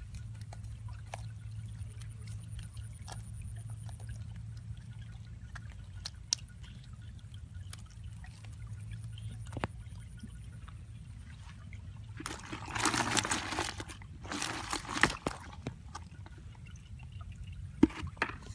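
Water pouring and splashing in two short bursts, about twelve and fourteen and a half seconds in, over a steady low hum with scattered small clicks.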